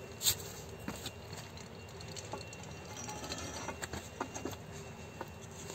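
A long steel pipe handled and slipped over a wheel-nut wrench handle as a cheater bar: scattered metal clicks and light knocks, a sharp click about a quarter second in being the loudest, with footsteps on dry leaves.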